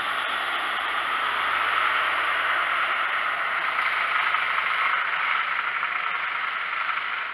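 Class 43 HST power car W43002's diesel engine running close by as the power car moves past: a loud, steady rushing noise that eases slightly near the end.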